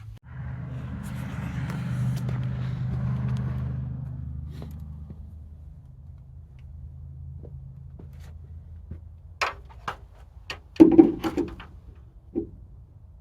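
An engine running steadily, its level rising for a few seconds and then easing off, followed by several sharp knocks and clanks, the loudest near the end.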